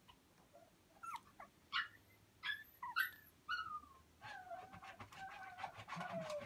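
Young puppies yipping and whimpering: a handful of short, high yelps that drop in pitch, then from about four seconds in one long whine that slowly sinks in pitch, with light clicks behind it.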